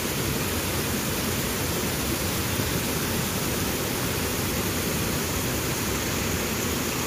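A small waterfall pouring over a rock ledge and splashing into a pond: a steady rush of water.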